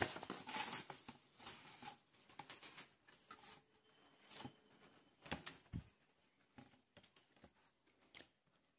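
Paper rustling as a sheet on a clipboard is turned over, followed by a few faint taps and handling sounds.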